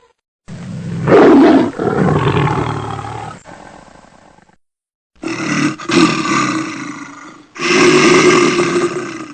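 A big cat roaring: three separate loud roars, the first the longest, with abrupt cuts and short silences between them.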